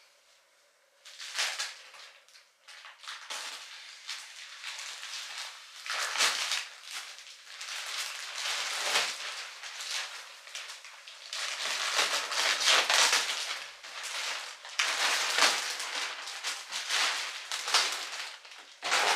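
Plastic wrapping on a vacuum-packed memory foam mattress crinkling and crackling in irregular bursts as it is cut and pulled open. It starts about a second in.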